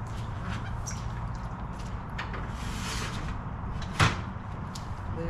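CareFree manual awning's metal support arms being pushed up and handled, with light clicks and rattles and one sharp clack about four seconds in as an arm catches and locks into place.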